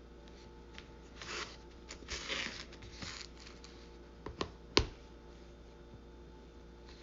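Short bursts of rustling handling noise, then three sharp clicks a little after halfway, the last one the loudest.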